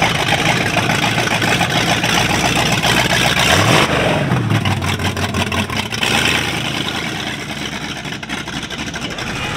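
A classic car's engine running and revving as the car drives past and pulls away, rising in pitch about three and a half seconds in, then fading in the last few seconds.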